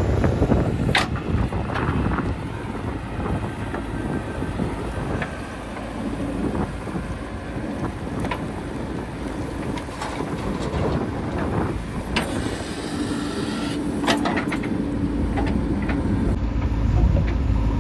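JCB 3DX backhoe loader's diesel engine running steadily while it works, with a few sharp metallic knocks.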